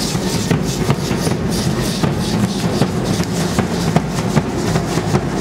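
Music for a feather dance (danza de la pluma): a violin over steady drum beats and the dancers' shaken rattles, with sharp beats about two to three times a second.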